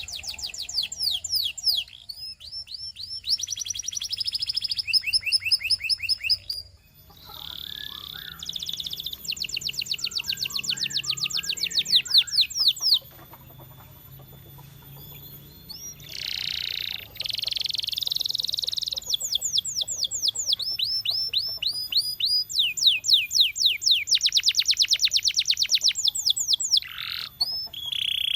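Domestic canary singing: fast trills and rolls of rapidly repeated high sweeping notes, the phrases changing from one tour to the next with brief pauses between them, and a quieter gap about halfway through.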